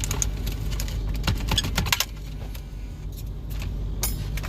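Metal radio removal keys jangling and the head unit clicking and scraping as it is slid out of the dashboard: a quick series of sharp clicks, busiest in the first two seconds, over a steady low hum.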